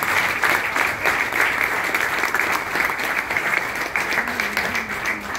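Audience applauding, dense clapping that dies away at the very end.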